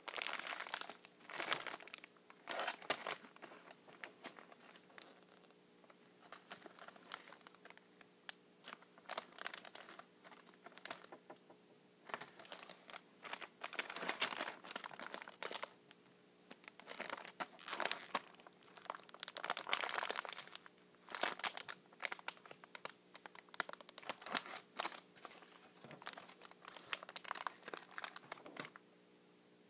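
Packaging crinkling and being torn open by hand in irregular bursts, with short pauses between them.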